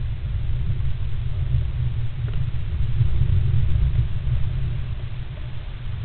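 Steady low rumble inside a nest box, with a faint scratch about two seconds in from a great spotted woodpecker preening.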